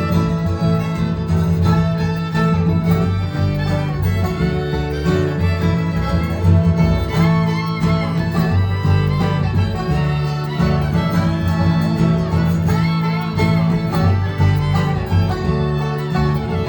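Bluegrass band playing an instrumental break, live: a fiddle lead with gliding notes over strummed guitar, banjo and a steady low bass line.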